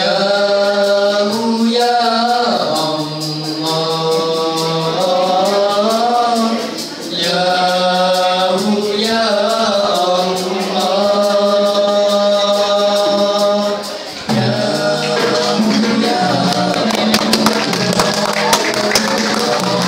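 Male nasyid vocal group singing in close harmony through a hall PA, in long held phrases. Light percussion taps grow more frequent near the end.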